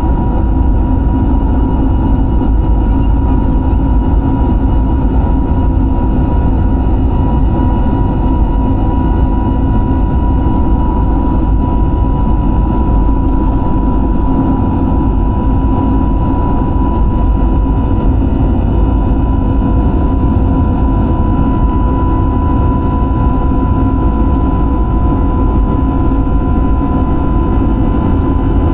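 An airliner's engines running steadily, heard from inside the passenger cabin: a constant deep rumble with a steady high whine over it.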